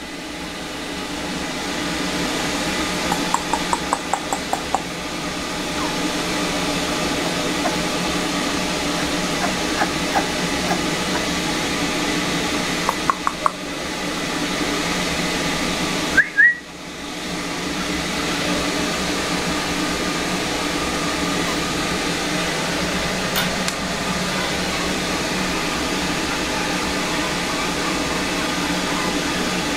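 Steady background hiss with no clear source, broken by two short runs of quick clicks and one brief rising squeak about halfway through.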